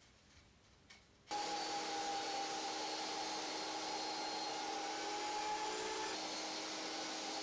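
Table saw running, coming in abruptly after about a second of near quiet, with a steady whine as a push stick feeds a sheet of plywood through the blade in a rip cut. The tone shifts slightly near the end as the cut finishes.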